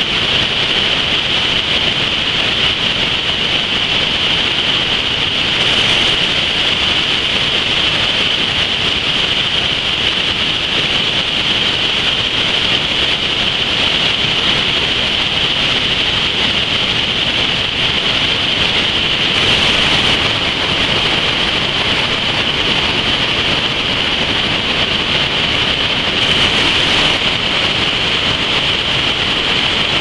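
Loud, steady rush of a mountain creek's white water cascading over rocks at a small waterfall, with slight shifts in tone a few times.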